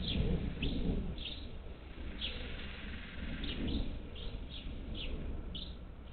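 Parakeets calling at a feeder: a run of short, sharp chirps, about two a second, over a low rumble that is strongest in the first second.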